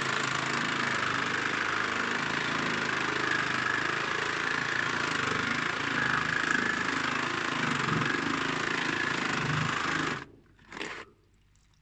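A handheld power tool's motor running steadily under load, then cutting out about ten seconds in, followed by one short burst.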